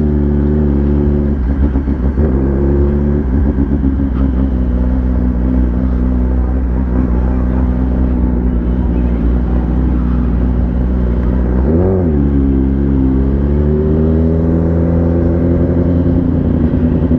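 Motorcycle engine running at a steady cruise. Its pitch holds even, swells briefly about twelve seconds in, then settles lower and slowly climbs again.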